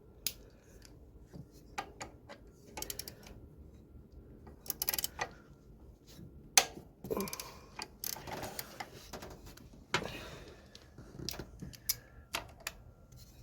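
Hand tools clicking and clinking on metal under the hood, with short runs of ratchet-wrench clicks as a 12 mm bolt on the alternator is worked loose. The clicks come irregularly, with one sharper metal knock about six and a half seconds in.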